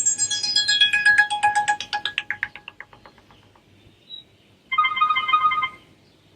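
Preset ringtones played through a Sharp Aquos Pad SH-08E tablet's speaker: a fast run of short notes falling in pitch and fading away over about three seconds, then, after a pause, a short chime lasting about a second.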